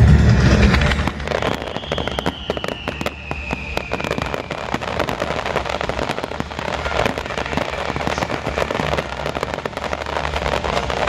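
Aerial fireworks display: a deep boom at the start, then dense, continuous crackling from many small bursts, with a whistle falling in pitch over a few seconds early on.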